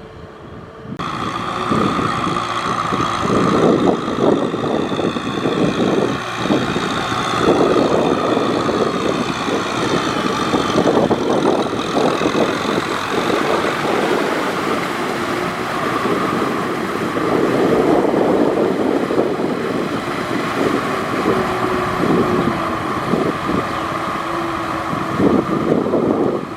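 Tractor engine running under load, its level rising and falling, after a brief quieter moment at the start.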